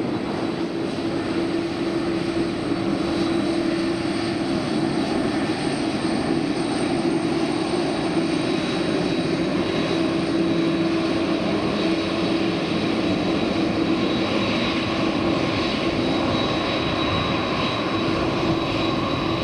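Jet airliner engines running, a steady drone with a constant low hum and a high whine over it.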